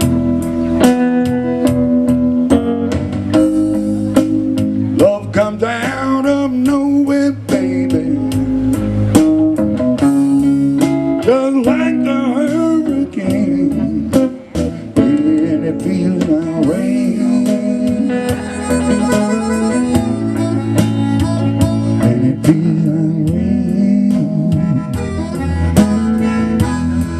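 Live blues played on electric guitar and bass guitar: an instrumental passage with bent guitar notes over a steady bass line.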